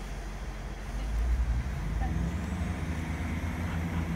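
Class 66 diesel locomotive's two-stroke V12 engine running; its sound grows louder about a second in and then holds a steady note.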